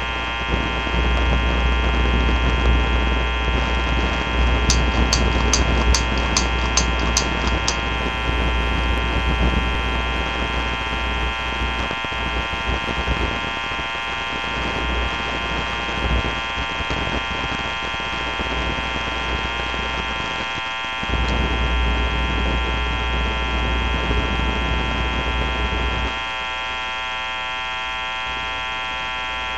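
Loud, steady electrical hum and buzz throughout. About five seconds in comes a run of about nine light, evenly spaced clicks, a little under three a second. The deep part of the hum drops away near the end, leaving the higher buzz.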